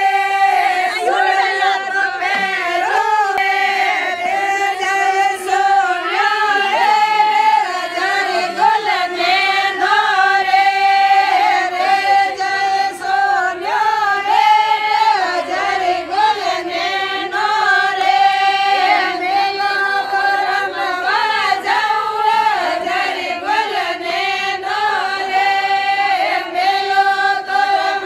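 A group of women singing a Marwari Fagan folk song together, the melody held in long sung lines.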